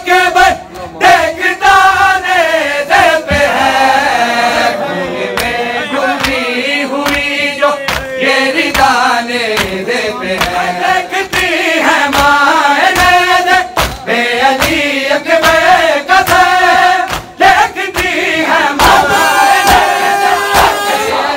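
A group of men chanting an Urdu noha, a Shia lament, led by a reciter on a microphone. Under the chant, rhythmic chest-beating (matam) slaps land about once a second.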